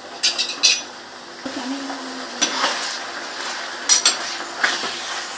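A metal cooking utensil clinking and scraping against a frying pan as chopped goat offal is stirred in hot oil over a high flame. A quick run of sharp clinks comes in the first second, then a few spaced knocks, over a low sizzle of the meat frying.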